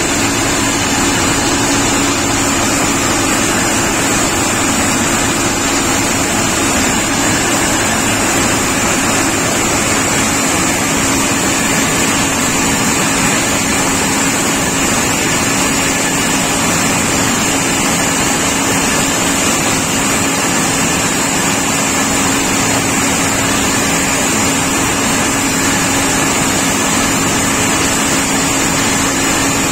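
Combine harvester running with a John Greaves corn header engaged, harvesting standing maize: a steady machine drone with a constant low hum and a high whine, unchanging throughout.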